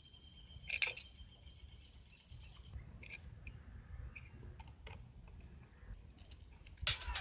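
Faint high bird chirps over low background rumble, with a sharper, louder sound about a second in; music with a strong beat starts abruptly near the end.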